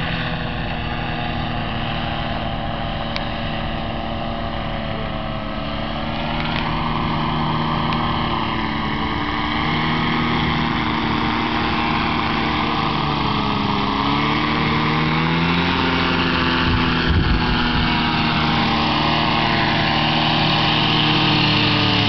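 Small engine driving the propeller of a homemade flying wheelbarrow, running under power in flight. Its pitch rises and falls with the throttle several times and drops near the end.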